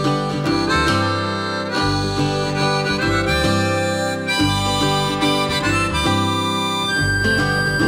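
Background music: a harmonica melody over guitar.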